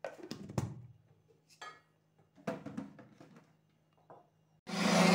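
Hard plastic knocks and clatters as a blender's lid is fitted onto its jar and the jar is handled, in three or four short bunches. About four and a half seconds in, the blender motor starts with a sudden loud, steady whirr, grinding the lemon pulp and sugar.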